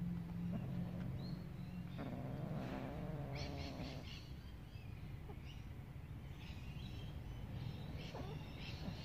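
Birds chirping in short high bursts several times, over a low steady background hum. About two seconds in, a cat gives a low, wavering growl lasting about two seconds while the cats mate.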